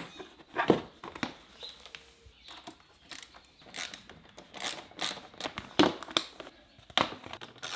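Hands refitting parts on a dirt bike: scattered clicks, taps and rustling, with a few sharper knocks near the start, about five seconds in and near the end.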